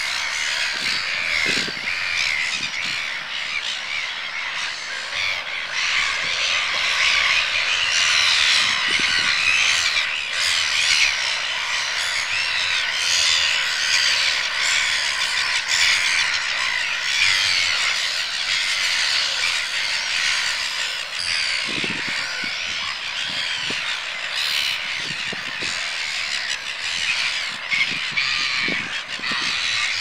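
A large gull colony calling: a continuous chorus of many overlapping short, high calls.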